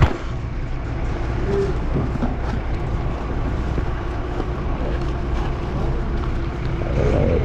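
Strong wind buffeting the microphone while riding a Bajaj Boxer 150X motorcycle, with the small single-cylinder engine and road noise underneath. The noise is steady and heaviest in the low end.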